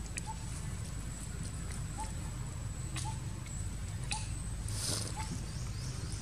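Outdoor woodland ambience: a steady thin high-pitched tone over a low rumble, with short small chirps about once a second and a few scattered clicks and rustles.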